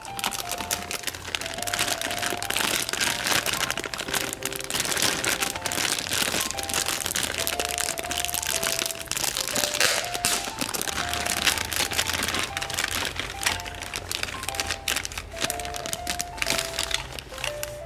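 Clear plastic bags crinkling and crackling as toy pieces are handled inside them, over a light background tune of simple melody notes.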